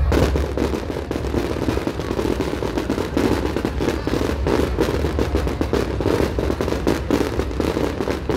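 Fireworks going off in rapid succession: a dense, continuous crackle of sharp reports over a low rumble.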